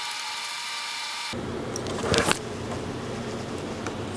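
A steady hum and hiss, hissier for the first second or so, with one brief rustle of the scanner and tripod being handled about two seconds in.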